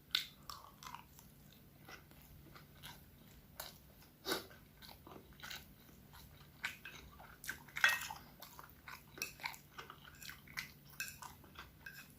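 A person chewing and biting food close to the microphone: irregular soft clicks and crunches, the loudest about a third of the way in and again about two-thirds through.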